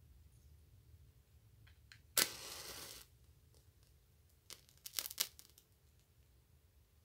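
A wooden match struck on a matchbox, flaring up with a short rasping hiss about two seconds in, followed a couple of seconds later by a few sharp crackles.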